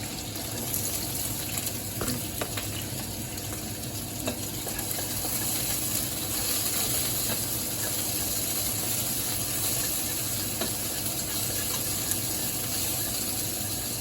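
Garlic sizzling in hot fat in a kawali (wok), with a few light taps of the spatula against the pan as it is stirred. The sizzle swells about a second in and stays steady.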